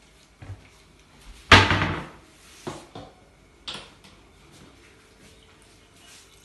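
A kitchen cupboard door shut with a bang about a second and a half in, followed by a few lighter knocks and clicks as a plastic squeeze bottle is handled.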